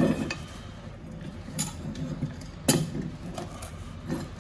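A few sharp clicks and knocks over a steady low hum, the loudest a little past halfway, like small hard objects being handled while working.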